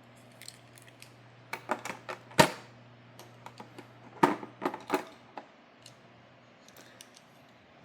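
Scattered sharp clicks and taps of die-cast toy cars and their plastic packaging being handled. The loudest click comes about two and a half seconds in, with another cluster around four to five seconds.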